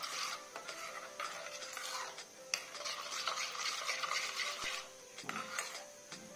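A metal spoon stirring and scraping a wet mustard paste around a stainless steel bowl, a quick run of scrapes and light clinks with brief pauses.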